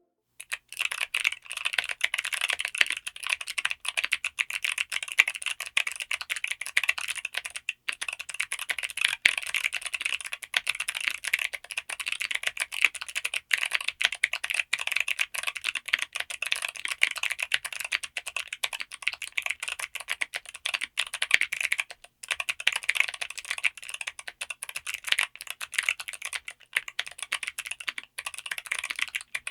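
Continuous fast typing on a TKD Cycle7 gasket-mounted mechanical keyboard (aluminium case, FR4 plate), a dense run of crisp key clacks. There are short pauses about eight seconds in and again near twenty-two seconds.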